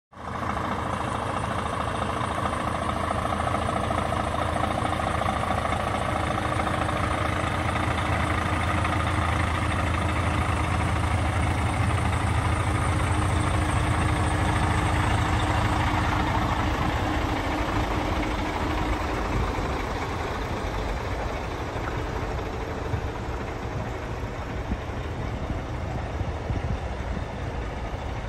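Diesel engine of a DAF CF tractor unit idling steadily.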